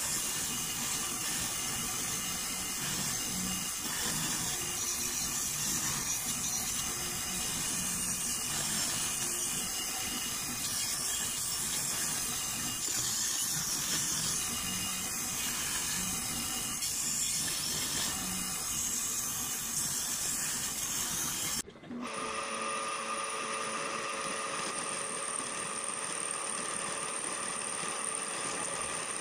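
Shop power tools machining an aluminum engine-to-transmission adapter plate: a steady, dense cutting noise. About 22 s in it breaks off suddenly and a machine takes over, running with a steady high whine.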